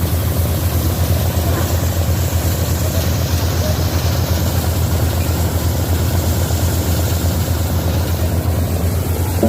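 Motorized paddy thresher running steadily: a continuous low engine drone with a dense rushing noise over it.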